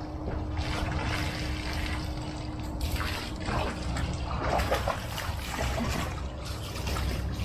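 Water from a garden hose splashing into a shallow plastic kiddie pool, with a dog splashing about in the water, loudest a few seconds in.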